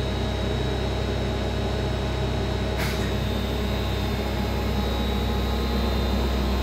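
Grawostar CNC Master milling machine running: a steady hum with a thin high whine while the spindle head travels up away from the work, with a brief click about three seconds in.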